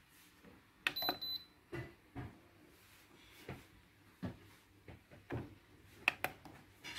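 Plastic push-buttons on an electric fan's digital control panel clicking as they are pressed, about eight presses, with a short high electronic beep about a second in. The fan motor, which has a fault, stays silent.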